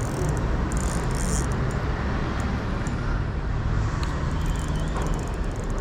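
Steady low rumble of road traffic on a bridge, with faint ticks over it.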